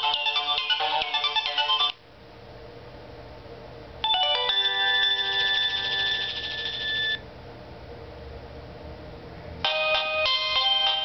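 Nokia 3220 mobile phone playing its built-in ringtones one after another. A many-note tune with a falling sweep ends about two seconds in; after a short pause a held chiming chord sounds for about three seconds; after another pause a new fast tune starts near the end.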